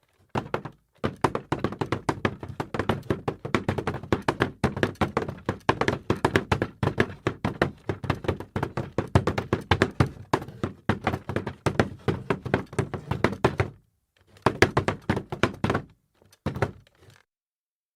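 Wooden chair dragged across a wooden floor, its legs juddering in a fast run of knocks. One long drag is followed, after a short pause, by two shorter ones near the end.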